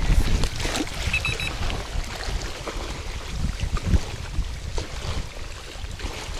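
Wind buffeting the microphone, with small waves lapping against the shore. A quick run of three short high beeps comes about a second in.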